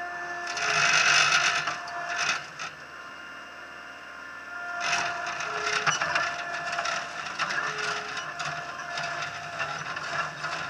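TCM 706 compact loader running and travelling, its engine and hydraulics giving a steady whine under the rattle and creak of the bucket and frame. The clatter grows louder for about a second near the start and again about halfway through.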